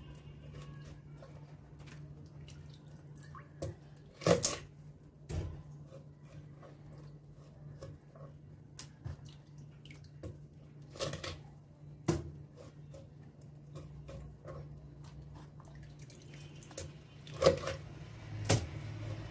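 Kitchen knife chopping the heads off pandora fish on a wooden cutting board: sharp knocks in three pairs, each pair about a second apart, with smaller clicks and wet handling between as the fish are lifted from a tub of water. A steady low hum runs underneath.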